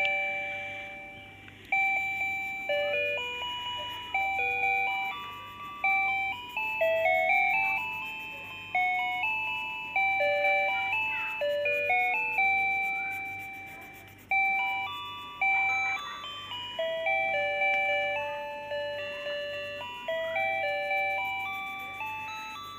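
A simple electronic tune of single chiming notes, each struck and then fading, as from the built-in music chip of a children's projector drawing table. Faint scratching of a felt-tip pen colouring in is heard underneath.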